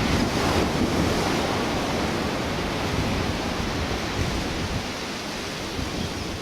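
Steady rushing of wind and surf, with wind buffeting the microphone. It swells in the first second, then eases slightly.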